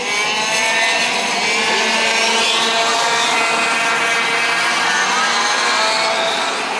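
Several ROK Senior racing karts' two-stroke engines running together on track, their high-pitched notes overlapping and drifting slightly in pitch.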